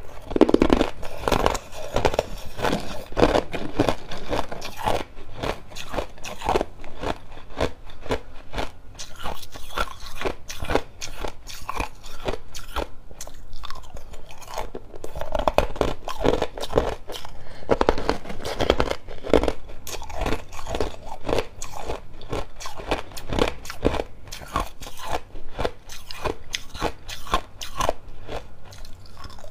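Clear ice cubes being bitten and chewed close up: a fast, unbroken run of crunches as the ice cracks and breaks between the teeth.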